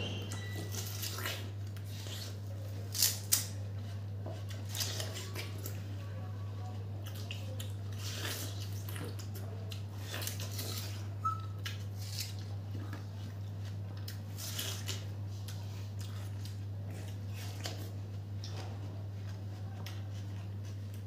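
Two people biting and chewing juicy watermelon slices close to a clip-on microphone: scattered wet crunches and slurps, two louder ones about three seconds in and another about eleven seconds in, over a steady low hum.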